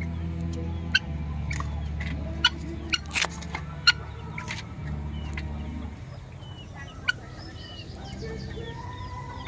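Farm poultry calling, with short high peeps that grow more frequent in the second half. Underneath there is a low steady drone, broken by several sharp clicks.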